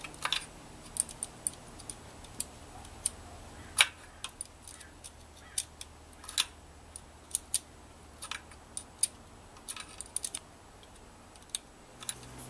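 Irregular light clicks and clinks of small metal and plastic motor parts being handled and fitted by hand, with the sharpest clicks about four and six and a half seconds in.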